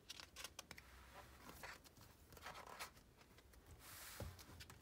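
Faint paper handling: scattered small clicks and rustles of a large picture book's pages, then the swish of a page being turned near the end.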